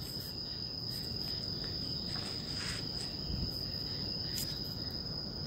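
A steady high-pitched tone held unbroken over faint low background noise.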